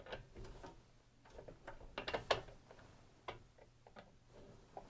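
Irregular small clicks and taps of parts being handled as the electrode (element) wire connectors are fitted back onto a steam humidifier canister.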